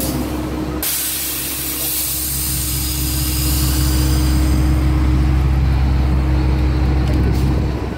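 Compressed air hisses out sharply about a second in as the pull handle of a Hendrickson air-operated sliding-axle pin release is worked, fading over a few seconds. Underneath, a truck's diesel engine idles with a low drone that swells midway and drops near the end.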